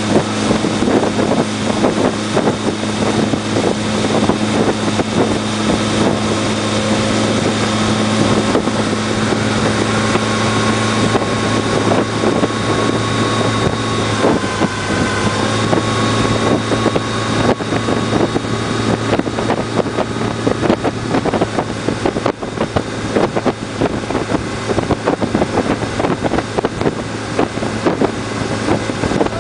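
Motorboat engine running steadily at speed, with wind buffeting the microphone.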